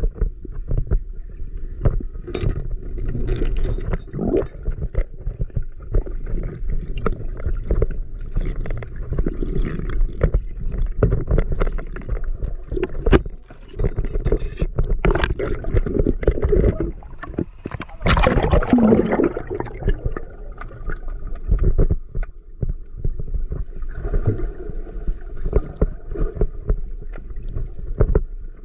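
Muffled river water sloshing and gurgling right around the microphone of a diver's camera, with frequent knocks and clicks. A louder rush of water comes about two-thirds of the way through.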